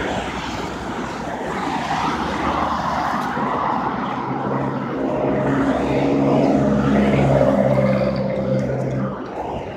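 Street traffic noise, with a motor vehicle's engine humming close by from a few seconds in, loudest past the middle and dropping away near the end.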